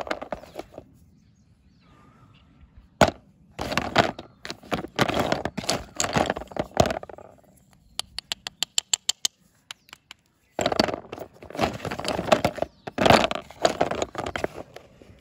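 Brittle pieces of a dry red bar clattering, clicking and scraping against each other and the plastic tub as they are picked up and rubbed together. There are two long bouts of dense clicking and grating, with a quick even run of light ticks between them as one piece is rubbed across another.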